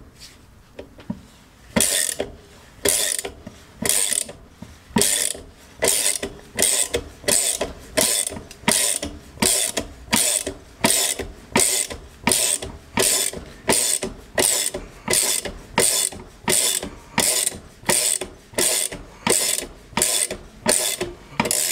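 Hand ratchet wrench clicking in even, repeated strokes, about two a second, as it winds the threaded rod of a bushing press drawing a new silent bloc into a rear upper wishbone. The bushing is a tight fit, going in slowly.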